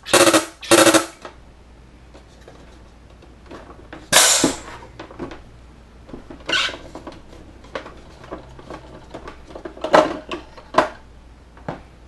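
SodaStream injecting CO2 from an external 20 lb tank into a bottle of water: two loud buzzing bursts of gas in the first second, then a short hiss about four seconds in as the excess pressure vents. Clicks and knocks of the bottle and machine being handled follow.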